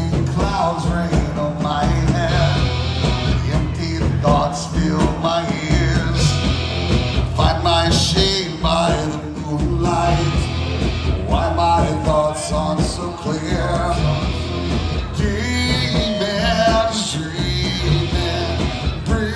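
Live rock band playing loud: electric guitar, bass guitar and drums, with a male singer.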